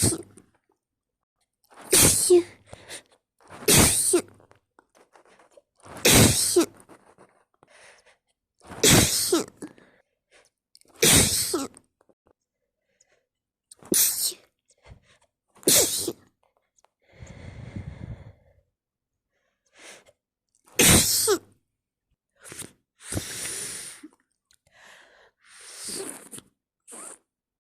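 A person having a snotty sneezing fit: about nine sneezes, one every two to three seconds with a longer pause in the middle, with wet sniffling and breathing between them.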